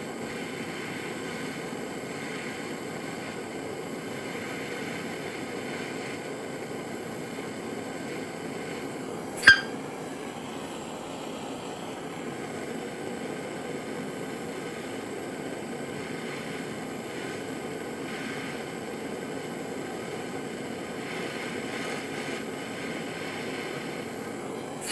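Masterclass kitchen blowtorch flame burning steadily with an even hiss. Two sharp clinks cut through it, one about ten seconds in and one at the very end.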